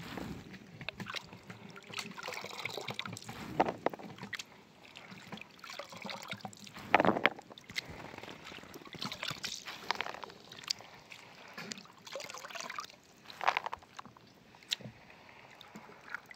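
Hands sloshing wild mountain pistachios in a basin of water and scooping out dripping handfuls, the wet fruits dropping into a plastic basket. It comes in uneven bouts every second or two, the loudest about seven seconds in.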